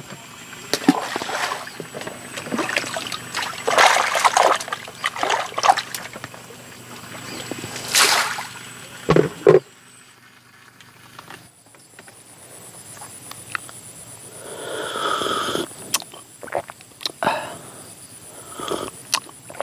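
Water sloshing and splashing with scattered knocks and clatters of work on the water. The sound breaks off abruptly about ten seconds in, then picks up again more quietly.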